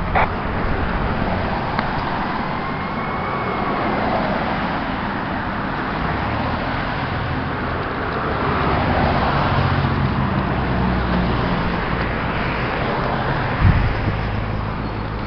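Road traffic noise from passing vehicles' engines and tyres, with a fire engine's siren faintly rising and falling in the distance while it responds with lights on. A single thump comes near the end.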